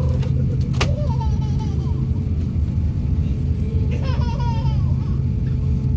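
Jet airliner cabin noise as the plane taxis: a steady low rumble from the engines with a faint steady hum, heard through the cabin. A sharp click comes a little under a second in.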